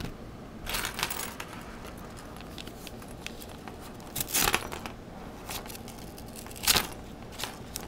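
A paper envelope being prised open with a plastic card slid under the flap: irregular rustling and short tearing sounds, the sharpest about four and a half seconds in and again near seven seconds.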